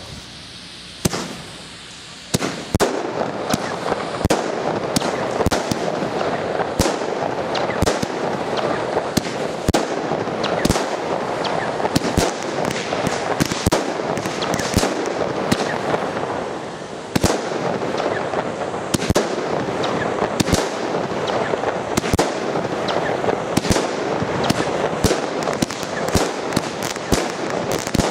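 Hirt & Co. 'Color Peony with Color Tail' fireworks battery firing shot after shot: a rapid, irregular series of sharp bangs over a dense, continuous hissing noise. It starts with a single bang about a second in, builds into a sustained barrage, and eases briefly about two thirds of the way through before picking up again.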